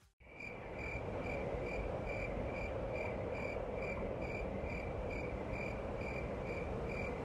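Crickets chirping: an evenly repeated chirp about twice a second over a steady background hiss.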